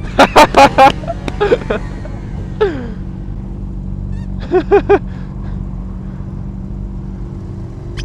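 Motorcycle engines idling steadily at a stop. Over them come short, loud pitched sounds: four in quick succession near the start and three more about halfway through.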